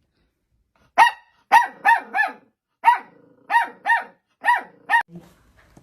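A puppy yapping: about nine short, high-pitched barks in quick succession, starting about a second in.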